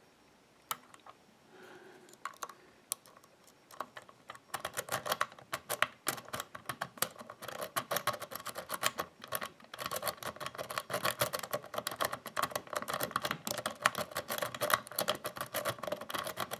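Lock-pick rake scrubbing in and out over the pins of a 5-pin BASI euro cylinder under tension, a fast, dense run of small metallic clicks and scrapes that starts about four seconds in after a few scattered clicks.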